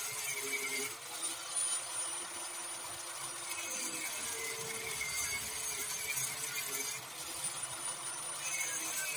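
Handheld angle grinder running its disc against a steel pipe: a steady motor whine with a hiss of metal abrasion. The whine sags in pitch briefly about a second in, again around three and a half seconds and near seven seconds, as the disc bites under load.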